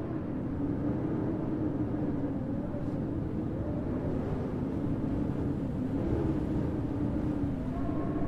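Blizzard wind blowing steadily, a low rumble with a faint howling tone that wavers slowly up and down in pitch.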